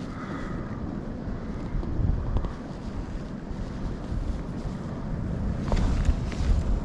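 Wind buffeting the microphone over the sound of sea water, a steady low rumble and hiss, with a couple of faint clicks near the end.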